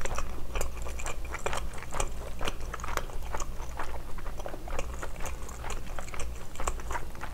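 Close-miked chewing of spicy steamed scallop: a steady, irregular run of soft mouth clicks and smacks, several a second.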